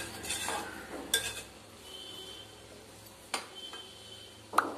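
A spoon stirring chopped cabbage in an aluminium pressure cooker, scraping and knocking against the pot's side in several sharp clinks. The loudest clink comes near the end.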